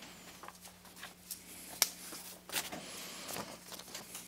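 Scattered light paper rustles and clicks of Bible pages being leafed through, over a steady low room hum.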